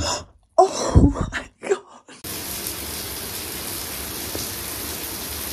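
A few loud, short bumps and clatters, then about two seconds in a tap is turned on and water runs steadily into a sink.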